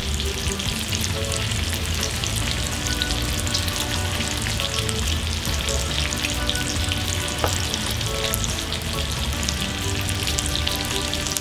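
Bacon strips frying on a hot flat-top griddle: a steady sizzle full of fine crackles.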